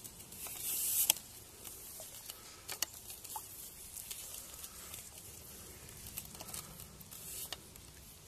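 River water splashing and sloshing as a landing net is dipped in and a released chub swims off. There is a brief burst of splashing about a second in, then small splashes and clicks.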